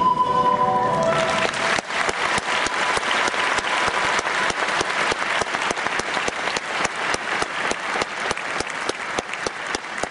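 Audience applause, with claps falling into a regular beat of about four a second. Background music with a held note plays under the start and stops nearly two seconds in.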